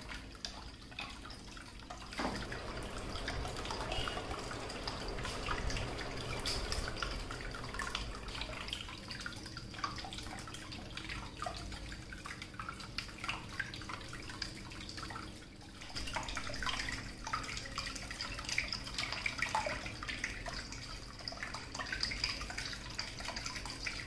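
Small cement tabletop waterfall fountain running: water trickling down a cascade and dripping and splashing into its basin, a little louder from about two seconds in.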